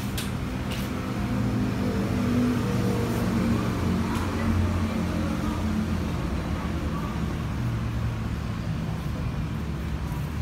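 Motor vehicle engine noise from road traffic: a steady low hum that swells for a few seconds and then eases off.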